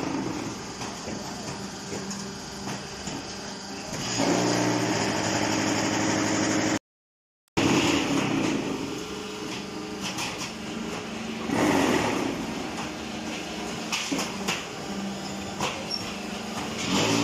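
Hydraulic vibration concrete block-making machinery running: a steady mechanical hum and clatter with scattered knocks, and a louder buzzing hum from about four seconds in. The sound cuts out completely for under a second about seven seconds in.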